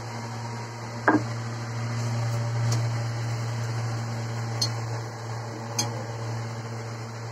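Kitchen utensils knocking on hard surfaces: one sharp knock about a second in, then a few light clicks, over a steady low electrical hum.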